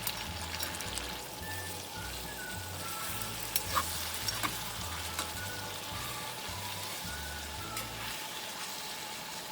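Food sizzling as it fries over a wood fire, a steady hiss with a few sharp crackles about halfway through.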